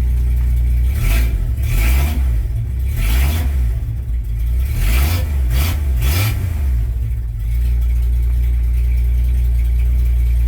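1983 Dodge D150's slant-six engine running after the fix, revved up and down several times, then settling back to a steady idle about seven and a half seconds in.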